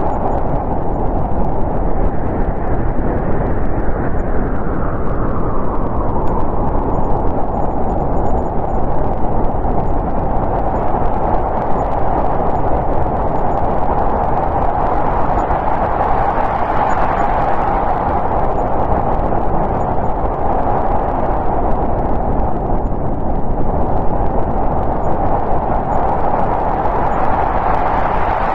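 Snowstorm wind blowing steadily, a dense whooshing hiss that swells and eases in slow gusts several seconds apart.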